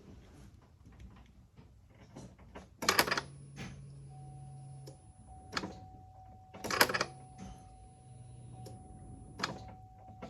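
Sharp mechanical clicks repeated about five times, with a low steady hum for a couple of seconds after the first click and fainter again later, as the ignition is cycled to run the electric fuel pump and pressurize the fuel rail of a Chevrolet Tahoe's LS engine.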